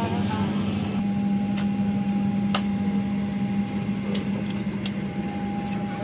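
Steady mechanical hum of a vehicle cabin, carrying a low tone and a higher whine that do not change, with a few sharp clicks about one and a half, two and a half and five seconds in.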